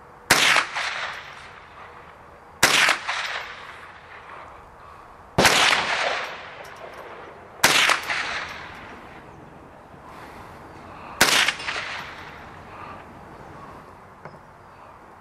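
Five rifle shots, spaced about two to three and a half seconds apart, each followed by an echo trailing off.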